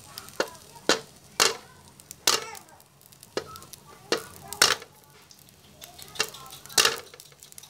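Metal spatula striking and scraping against a steel wok, about nine sharp knocks at uneven intervals, each with a short metallic ring.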